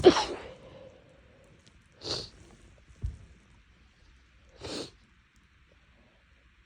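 A woman sneezes once, loudly, right at the start, then gives two short sniffs about two and a half seconds apart, part of a sneezing fit from a tickly nose.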